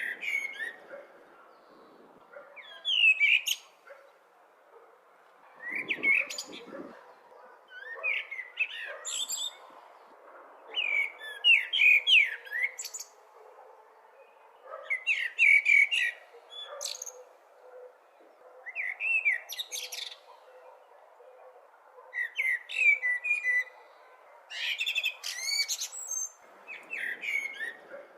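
Blackbird singing: short warbled phrases of fluty, gliding notes, one every two seconds or so, several ending in high squeaky notes, over a faint steady background hiss.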